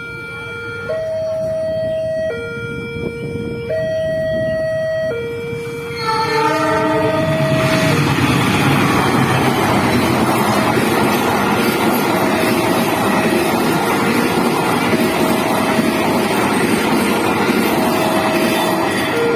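Railway level-crossing warning siren alternating between a high and a low note, each held about a second and a half. About six seconds in, a passing train's rumble and wheel noise rises and grows loud, mostly drowning the siren.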